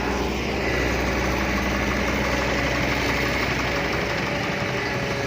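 Modified vehicle engine running steadily through a loud aftermarket exhaust.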